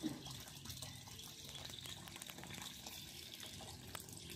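Faint, steady trickle of water with many small splashes, in a concrete garden pond. A short bump sounds right at the start.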